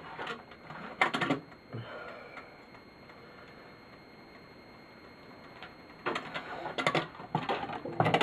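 Garage door opener's metal parts clattering and clinking in quick bursts as they are worked loose by hand, with a quieter stretch in the middle before the clattering picks up again from about six seconds.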